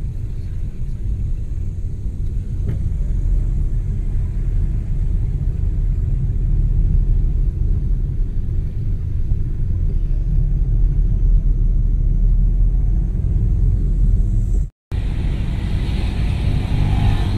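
Steady low rumble of a car's engine and tyres on a rough road, heard from inside the cabin while driving. The sound cuts out completely for a moment near the end, then the rumble resumes with a little more hiss.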